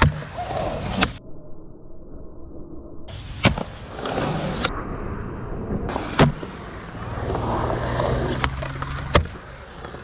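Skateboard wheels rolling on concrete, broken by sharp clacks of boards popping and landing, several tricks in a row. The loudest clacks come about a third of the way in, a little past halfway, and near the end.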